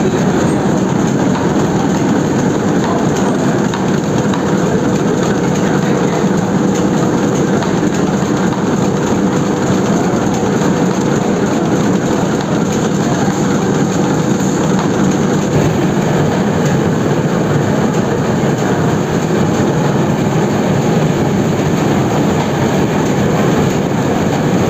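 Newspaper web printing press running at speed, a loud, steady mechanical din with a faint steady hum under it.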